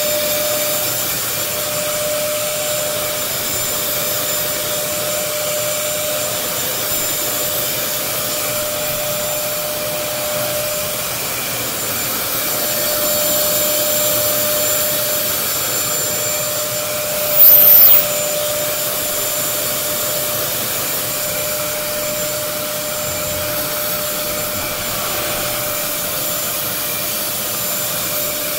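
Upright vacuum cleaner motor running steadily, with a constant whine. About two-thirds of the way through it briefly gets louder for half a second with a high whistle.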